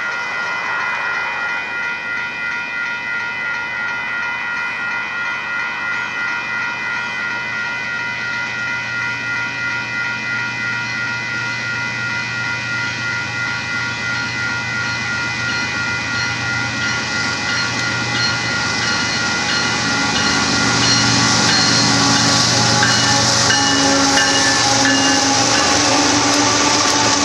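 Grade-crossing warning bell ringing steadily in an even pulse as a diesel freight train approaches. The locomotive's engine rumble and wheel noise build up over the last several seconds as it reaches the crossing.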